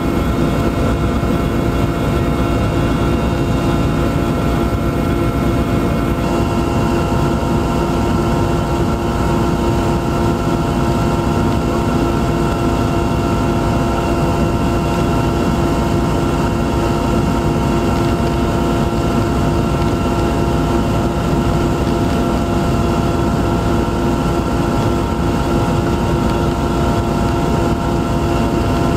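Steady aircraft engine drone heard from inside the cabin: a constant rumble with several unchanging hum tones over it.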